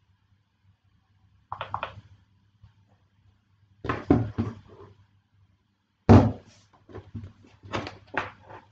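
Sharp knocks and clatters in four short bursts, the loudest about six seconds in, over a faint steady hum.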